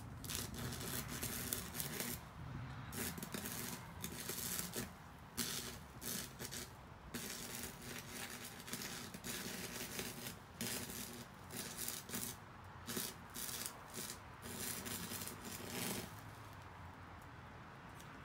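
Crackling arc of a Campbell Hausfeld 115-volt stick welder burning a 1/16-inch Hobart rod, coming in uneven spurts with short breaks as the arc catches, drops out and restrikes. It stops about two seconds before the end.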